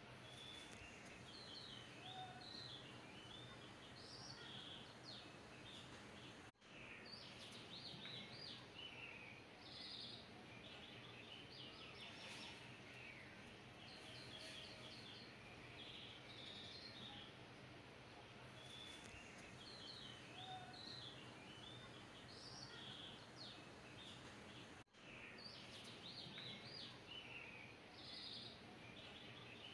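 Faint birdsong: clusters of short, high chirps keep coming over a low steady hiss, cutting out briefly twice.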